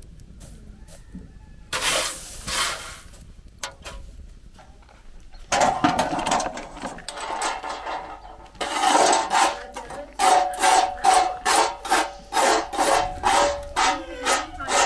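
A small metal spatula scraping and stirring dried acorn skins on a domed iron griddle over a fire, in repeated rasping strokes with a faint metallic ring, settling to about two strokes a second. A brief rustling rush comes about two seconds in.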